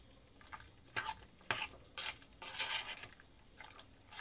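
A metal utensil scraping and clinking against a glass mixing bowl as a moist potato-and-tuna filling is stirred, in short irregular strokes with a longer scrape about two and a half seconds in.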